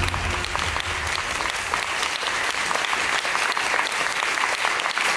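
Theatre audience applauding steadily at a curtain call, with the last of the stage music fading out in the first half second.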